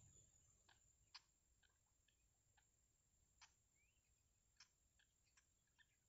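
Near silence, broken by about ten faint irregular ticks and one brief faint rising chirp a little past the middle.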